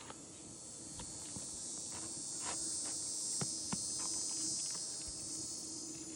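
A high, shrill insect chorus that swells up and then fades away, with scattered sharp taps and clicks.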